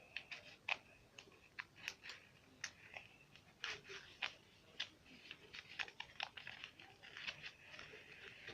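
Scissors snipping through a thick strip of many-times-folded paper: faint, irregular short crisp snips and crunches.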